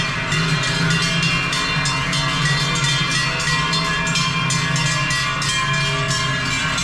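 Many large cowbells clanking and ringing together on a herd of cows as they walk, a dense, continuous jangle of overlapping bell tones.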